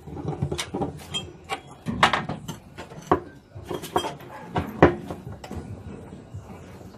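Metal parts and hand tools clinking and knocking in an irregular string of sharp clicks and clanks while a washing machine's bearing and seal assembly is taken apart. The loudest knock comes about five seconds in.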